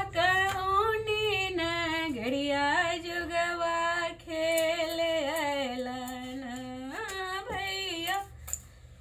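A woman singing a Bhojpuri folk song alone, with no instruments, in long drawn-out notes that glide up and down. A faint steady low hum runs beneath.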